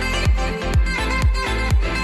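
Upbeat dance music with a steady kick drum about twice a second under a sustained melody.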